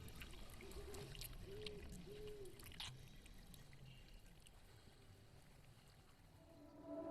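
Near silence: a hushed film soundtrack with a few faint clicks and soft tones, growing quieter towards the end.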